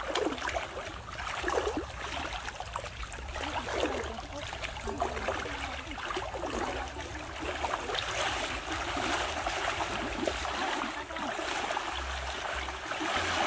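Shallow stream water splashing irregularly around the legs of several people wading through it, over the steady wash of the stream.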